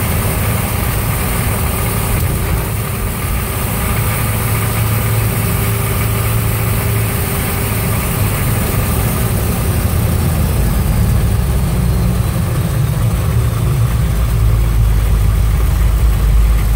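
Ex-military Hummer M998's diesel V8 running steadily as it drives, heard from inside the cab. Its note deepens in the last few seconds.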